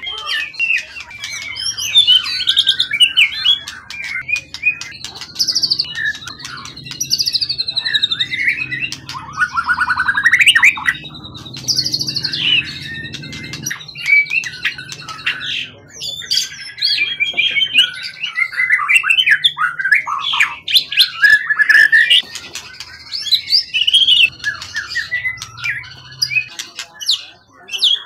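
Caged songbird singing a continuous, varied song of rapid whistles, trills and chattering phrases, some of them sliding in pitch.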